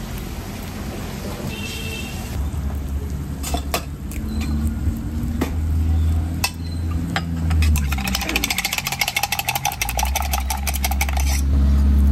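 Chopsticks clinking on metal: a few single clinks, then about three and a half seconds of rapid, even clinking of chopsticks beating eggs in a steel cup. A low rumble of traffic runs underneath.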